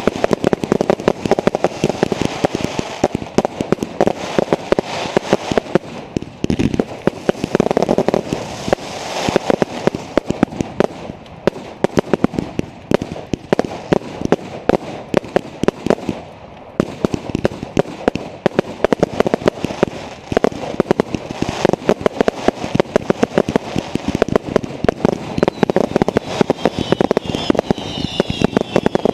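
Fireworks going off in a dense, rapid barrage of bangs and crackles, with a few short whistles near the end.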